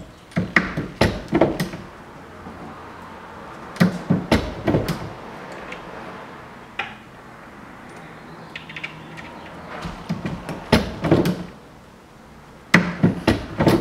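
Redding T-7 turret reloading press being cycled to full-length resize and deprime brass cases: clusters of metallic clanks and clicks from the lever, ram and brass being seated and pulled, in four bursts with quieter gaps between.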